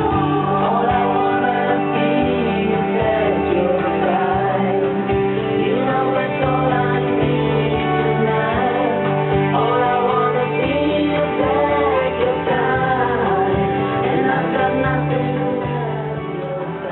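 A song playing: a singer over guitars, with a bass line stepping between held notes.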